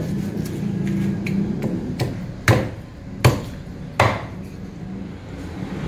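Kitchen knife chopping pufferfish into pieces on a round wooden chopping board. Three sharp knocks of the blade striking the board come a little under a second apart, with lighter taps between, over a steady low hum.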